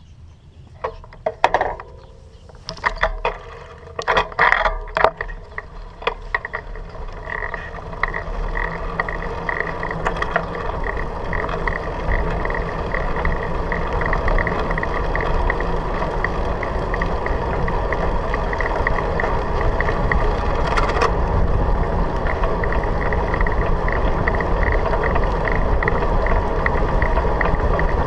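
Bicycle pulling away from a stop on an asphalt path: a few sharp clicks and knocks in the first seconds, then a steadily rising rush of tyre rumble and wind on the microphone as the bike speeds up to about 25 km/h, with a light regular ticking on top.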